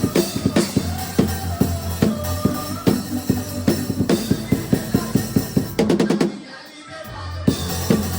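Drum kit played along with a band's music, a dense run of bass drum and snare hits under the track. About six seconds in the music breaks off for a second and a half, then the band and drums come back in.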